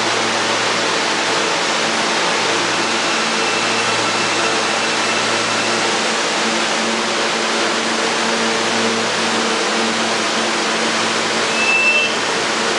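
R160A-1 subway train with Alstom ONIX AC propulsion rolling slowly into the station: steady wheel and rail noise under a steady motor hum. A brief high squeal comes near the end as it comes to a stop.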